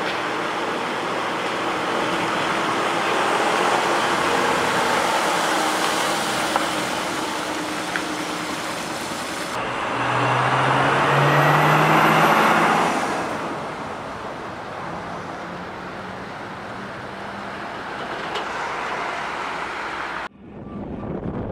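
Mercedes-Benz heavy truck's diesel engine running at low speed, with tyre and road noise, as the truck and its long low-loader pass close by. The sound swells loudest about ten to thirteen seconds in, then cuts off suddenly near the end.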